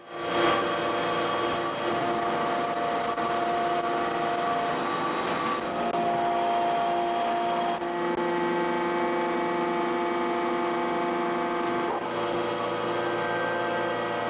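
Deep-drawing press running through a tube-forming stroke: a steady machine hum with several whining tones that shift in pitch a few times as the punch drives the blank into the die.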